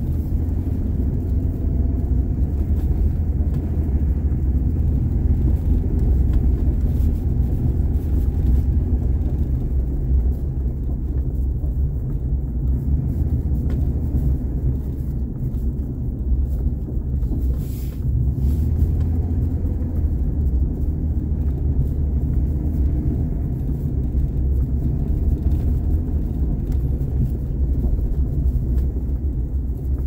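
Car driving, a steady low rumble of engine and tyres on the road.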